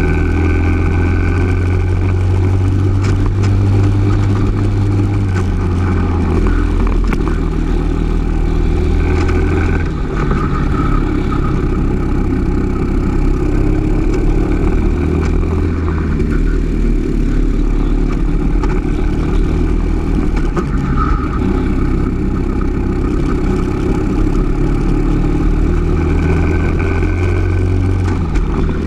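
Briggs & Stratton LO206 single-cylinder four-stroke kart engine running at racing speed, heard on board the kart. Its note rises and falls as the kart accelerates out of and slows into corners.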